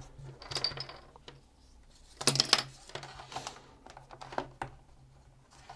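Cables being handled and plugged into the connection panel on the back of a Samsung MS650 soundbar: a string of small clicks and knocks, loudest a little over two seconds in.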